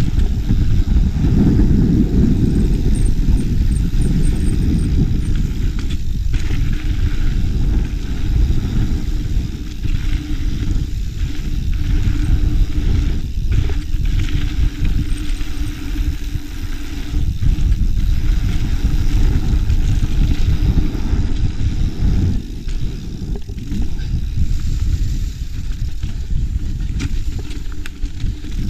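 Wind rumble and tyre-on-trail noise picked up by a GoPro action camera on a moving mountain bike: a loud, steady low rumble that eases off here and there.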